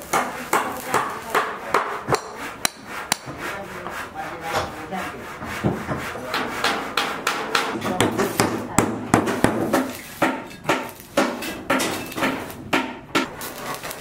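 Hammer blows at a steady pace, about two to three a second, over the steady crackling hiss of a stick-welding arc.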